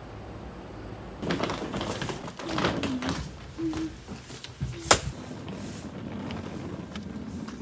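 Wheeled hard-shell suitcase being handled on a wooden floor: a run of knocks and rattles, with one sharp click about five seconds in.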